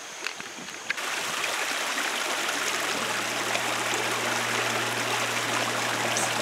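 Creek water running over rocks in a steady rush, which grows louder about a second in.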